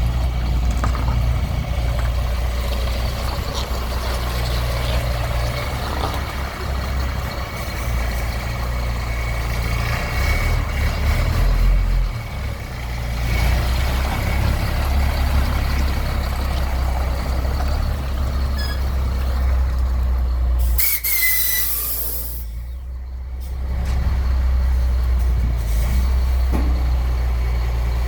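KAMAZ 45143 truck's Cummins diesel engine running steadily, with small rises and falls in engine speed. About three quarters of the way through, the air system lets out one sharp hiss of released compressed air, lasting about a second and a half.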